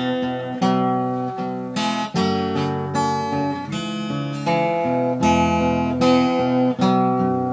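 Acoustic guitar music: plucked and strummed chords, changing every half second or so.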